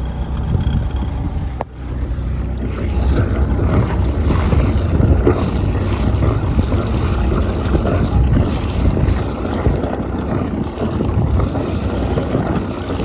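Perkins 4-108 four-cylinder diesel running, heard at its wet exhaust outlet, with cooling water gushing out and splashing into the sea. The water flowing out is the sign that the rebuilt raw-water pump is working.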